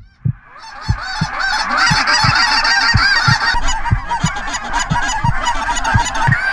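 A large flock of Canada geese honking, many calls overlapping into a dense chorus that swells up within the first second and then holds. A low thump sounds about three times a second underneath.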